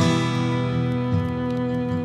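Acoustic guitar music: a chord strummed at the start and left ringing, with another lighter strum about a second in.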